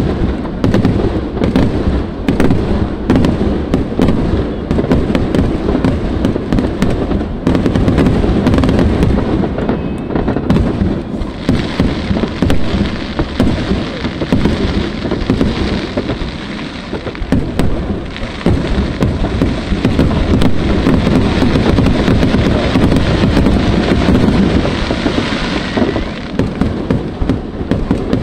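Aerial fireworks going off in a dense, continuous barrage of overlapping bangs.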